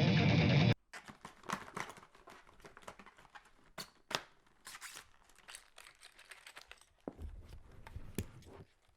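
Music cuts off suddenly just under a second in, then close-miked foley follows: a scattered run of small crinkling, crackling and clicking sounds, with a brief low rumble near the end.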